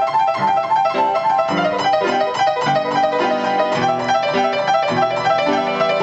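Solo piano playing a stride-style 'waterfall' figure: quick, evenly repeated right-hand broken-chord notes over left-hand bass notes and chords. It repeats the same chord inversion over and over, so it sounds mechanical, like an old player piano.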